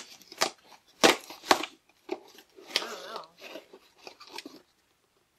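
Cardboard shipping box being torn open by hand: a few sharp rips in the first couple of seconds, then softer rustling of cardboard and packing that stops about a second before the end.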